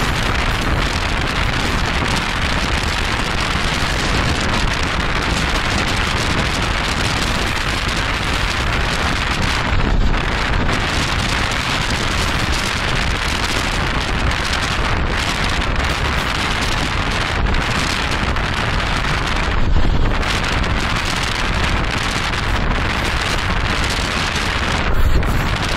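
Wind buffeting the microphone of a moving car, a steady rush over a low rumble, with a few brief louder gusts.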